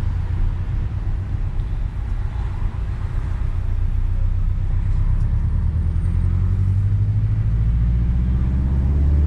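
Turbocharged Subaru flat-four engine and road noise heard from inside the cabin: a low, steady drone that grows louder and more even from about halfway through.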